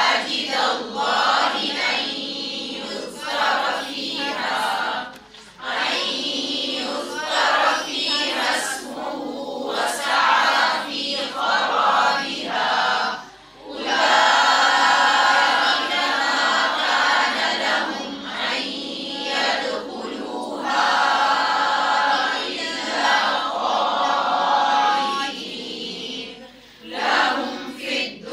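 A group of voices reciting Quranic Arabic verses together in unison, a chanted memorisation drill, with brief pauses between phrases.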